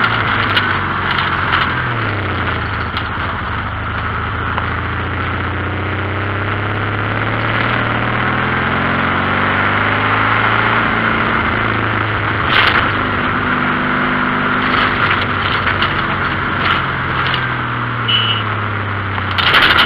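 Air-cooled VW 1600 flat-four engine of a dune buggy running under way, its pitch dropping and rising as the engine speed changes, over a steady rushing noise. Two sharp knocks, about twelve seconds in and at the very end.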